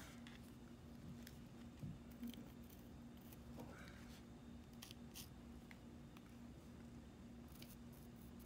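Faint scratching of a pencil drawing lines on a painted stone, in short irregular strokes, over a steady low hum.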